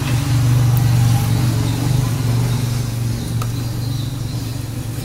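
A steady low drone like an engine idling, slightly louder in the first second or so and then easing off a little.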